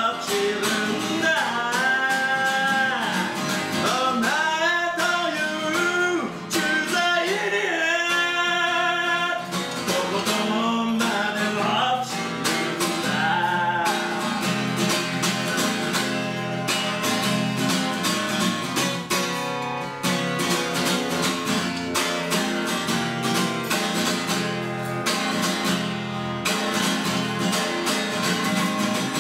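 A man singing to his own strummed acoustic guitar. About halfway through the voice stops and the guitar carries on alone with steady strumming.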